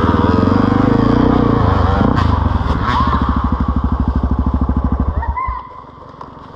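Dirt bike engine running at low revs with an even pulsing beat, then cut off suddenly about five seconds in.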